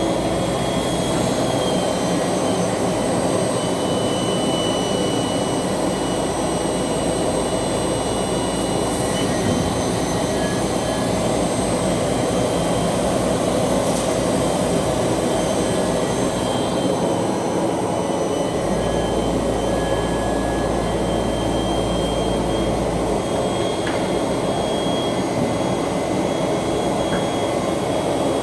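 ROBA Fentech window-profile sanding machine running steadily: a dense, even mechanical noise with several thin high whines over it.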